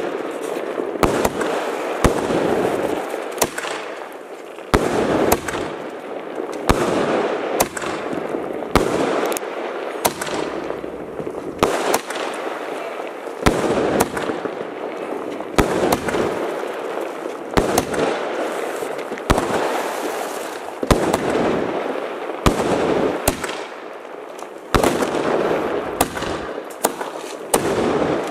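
Aerial fireworks going off in a steady barrage: sharp bangs about once a second, with continuous crackling noise from the bursting stars in between.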